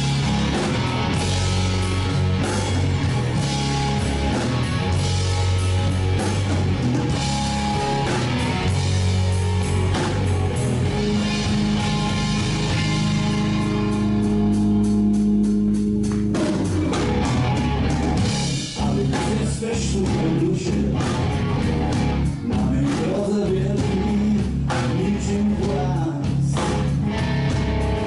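Live blues-rock band playing loud, with electric guitar, bass guitar and a drum kit. Around the middle the drums drop out for a few seconds under long held low notes, then come back in.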